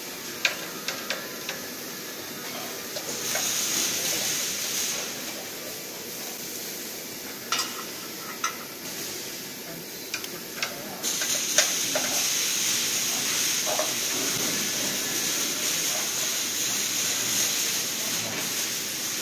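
Steady hiss with scattered small metal clicks and taps as an Allen key works a screw on a bracket of the CNC machine's steel frame.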